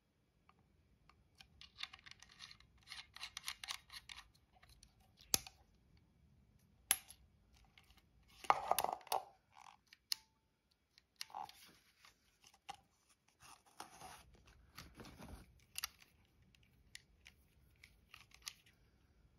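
Handling noise from a Super 8 movie camera: irregular clicks, taps and small scrapes of its parts and controls, with a louder scraping rustle a little before halfway and another near three quarters of the way.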